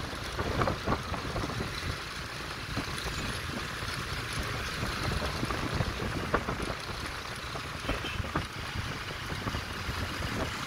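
Steady city street traffic and road noise heard on the move, with wind on the microphone.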